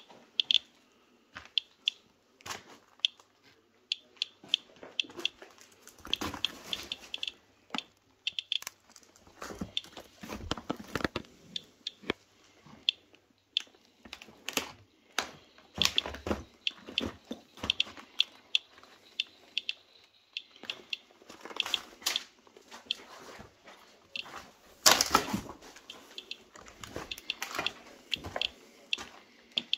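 Handheld Inspector Geiger counter ticking at random with each detected count, about one to three short high ticks a second, over crunching and scuffing of debris underfoot, with the loudest crunch late on.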